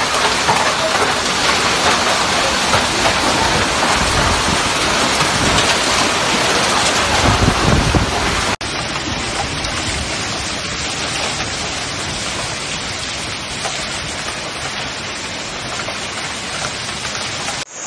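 Heavy hail and rain pelting down in a violent storm, a dense unbroken hiss with a low rumble of wind or thunder about seven seconds in. About halfway through it cuts suddenly to another stretch of steady, slightly quieter hail falling.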